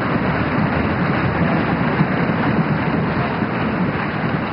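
A large seated audience applauding by thumping their desks and clapping, a dense, steady clatter that keeps going and fades a little near the end.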